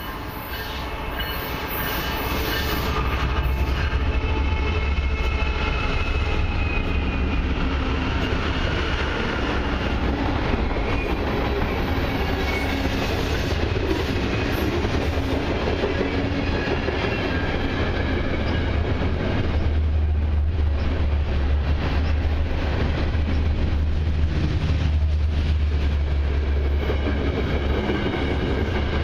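CN freight train passing close by. It grows louder over the first few seconds as the lead diesel locomotives come up, then a long string of freight cars rolls past steadily.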